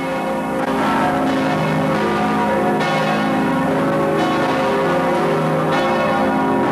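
The giant tower bells of Riverside Church pealing, fresh strokes every second or two, each note ringing on and overlapping the others. It is the half-hour call before Sunday worship.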